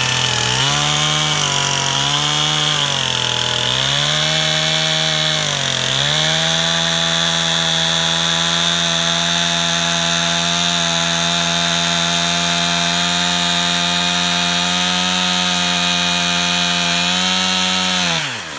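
Stihl chainsaw cutting through a tree stump close to the ground, its engine speed dipping three times in the first six seconds as the chain bites into the wood. It then holds a steady pitch under load, and the engine speed falls sharply near the end as the cut is finished.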